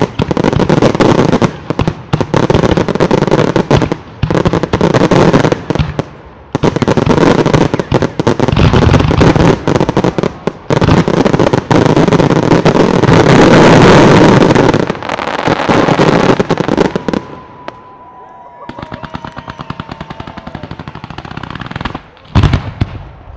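Fireworks going off in a rapid, dense barrage of bangs and crackle, loudest about two-thirds of the way through. It then thins to a lighter crackle, and a few sharp reports come near the end.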